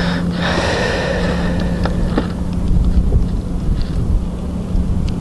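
Wind buffeting the microphone on open ice: a low, gusty rumble under a steady low hum, with a brief hiss in the first second and a few faint clicks.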